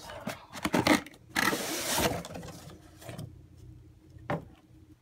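A fabric tool bag being pulled out of its cardboard box: irregular rustling and scraping in bursts, loudest about a second and a half in, with a single sharp knock near the end.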